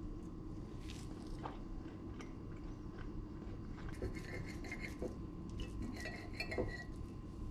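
Metal knife and fork clinking and scraping on a ceramic plate while cutting an omelette. A few light clicks come early, and a run of sharp clinks follows in the second half, over a steady low hum.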